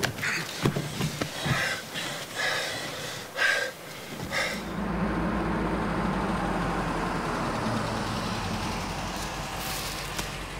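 A few short scuffing sounds at first, then, from about four and a half seconds in, the steady rumble of an SUV driving along a road, engine and tyre noise.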